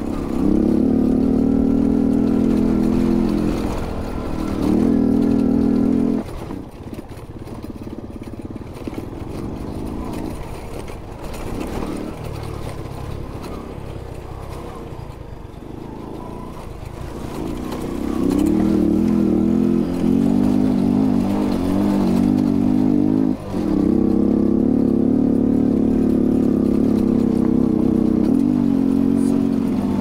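Honda Pop's small single-cylinder four-stroke engine pulling under load on a rocky dirt track. It runs loud for the first few seconds, drops to a low, quieter run for about twelve seconds, then pulls hard again with the pitch rising and falling, broken by a brief dip partway through.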